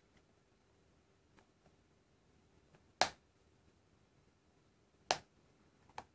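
A few sharp, short clicks, the two loudest about three and five seconds in, as a thin pry tool works around the glued edge of an HTC Desire Eye's display held up by a suction cup.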